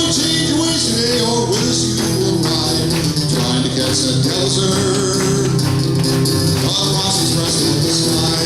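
Live band music with a tambourine shaking over sustained instrumental notes.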